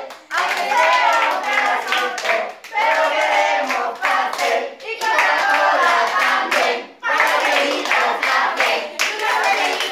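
A group of adults and children singing together in phrases of about two seconds while clapping their hands in time.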